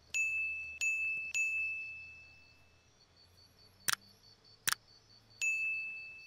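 Sound effects for an on-screen subscribe-button animation: three quick bell-like dings in the first second and a half, each ringing out. Two sharp clicks follow about four seconds in, and another ding comes near the end.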